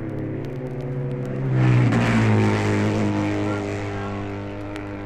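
Racing motorcycle engine passing close by on a TT race recording. It grows loudest about a second and a half in, and its note drops in pitch as it goes past, over a steady engine drone. Light vinyl record crackle.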